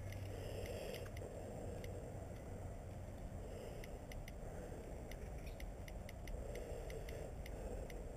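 iPhone on-screen keyboard clicking as a text message is typed, many quick irregular taps that come thicker in the second half, over a soft rustle.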